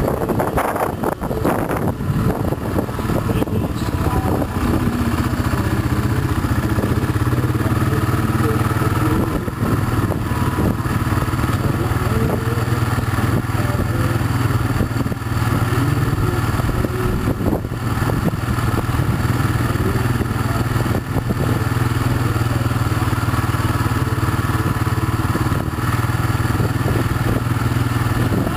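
An engine running steadily at idle, a low even hum that does not change in pitch or level.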